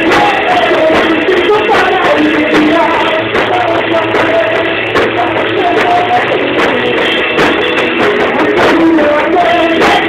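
A live band playing a song at a sound check, with drums and a sung melody, loud and continuous.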